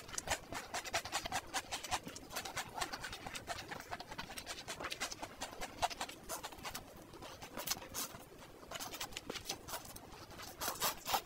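Close-up eating sounds of a mouthful of spicy stir-fried noodles: slurping and chewing, with a rapid, uneven run of wet mouth clicks and smacks.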